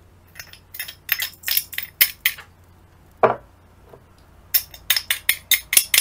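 Metal spoon clinking and tapping against a stainless steel bowl and containers while dry ingredients are spooned in. There is a run of quick, sharp clicks in the first couple of seconds, a duller knock about halfway, and another quick run of clicks near the end.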